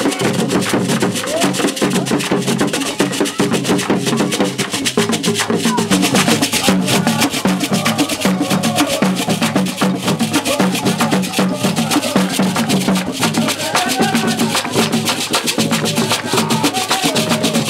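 Ewe Agbadza percussion ensemble playing a fast, dense rhythm: hand-struck wooden drums, a bead-netted gourd rattle (axatse) shaking, and sharp wooden clacks.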